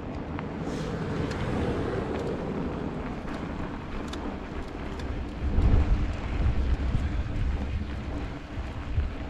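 Wind buffeting the microphone over steady rolling noise from a bicycle riding through snow, the buffeting gusting harder past the middle.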